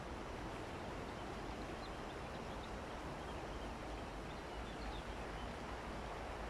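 River water flowing, a steady rush, with a few faint high bird chirps.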